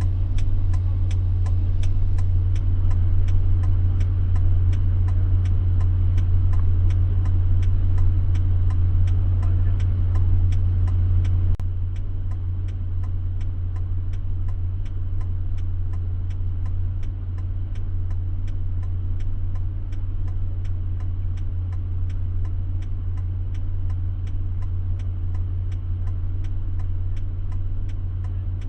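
A vehicle's engine drones steadily inside the cabin while the hazard or turn-signal flasher ticks evenly, about two ticks a second. About twelve seconds in there is a click, and after it the drone is a little quieter.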